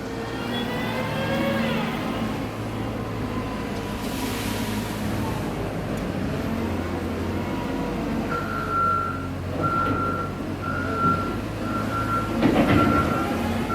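A vehicle engine revs up and then runs steadily. From about eight seconds in, a reversing alarm beeps about once a second over it, with a short clatter near the end.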